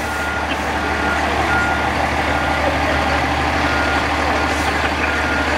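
Fire engine backing up in reverse gear: its backup alarm beeps about once a second over the steady running of the truck's diesel engine.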